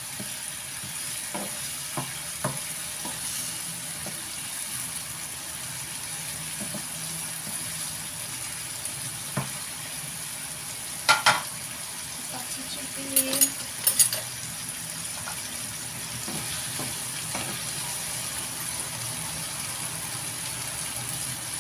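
Egg tofu, sausage and vegetables sizzling steadily in a nonstick frying pan while a wooden spatula stirs them. A few sharp clacks of the spatula on the pan, the loudest ones a little past the middle.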